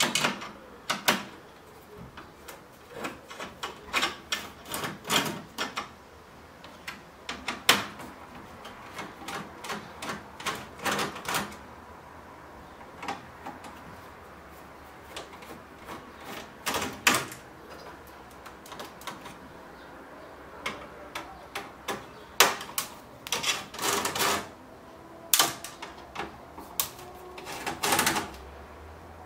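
Hand screwdriver working screws out of a Metz flat-screen TV's sheet-metal chassis: irregular clicks, short scrapes and knocks of metal on metal, in clusters with quiet gaps between.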